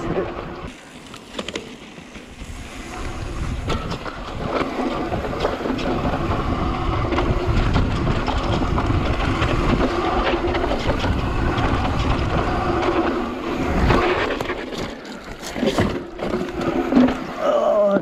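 Wind rushing over the camera microphone and knobby tyres rolling on dirt as a Trek Slash mountain bike rides the trail, louder after the first few seconds. Near the end come sharp knocks and rattles from the bike over bumps.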